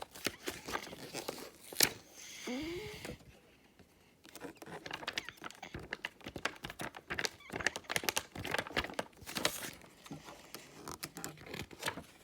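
Paper book pages being handled and flipped back and forth, a run of irregular rustles and clicks, with a sharper click near 2 s and a short break in the middle.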